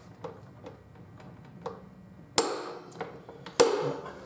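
Click-stop torque wrench set to 150 ft-lb snapping over twice, about a second apart, each snap followed by a short ringing; the click marks the wrench reaching its set torque and releasing. A few faint ticks come before.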